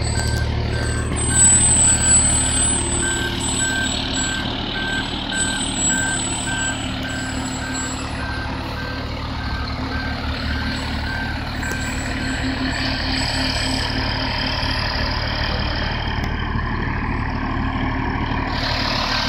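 Aerial ladder fire truck's diesel engine running low and steady as it backs up, its reversing alarm beeping at a regular pace until about two-thirds of the way through, when the beeping stops.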